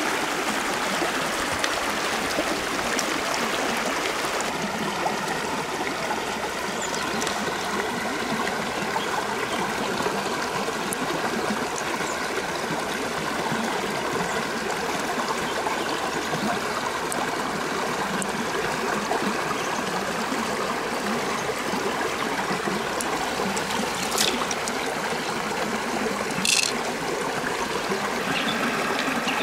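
Shallow rocky stream running steadily, water trickling over stones, with two short clicks near the end.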